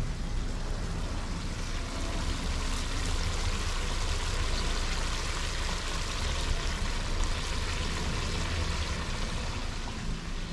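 Curry masala with added water boiling and bubbling in a wide pan on a gas burner: a steady watery hiss over a low rumble.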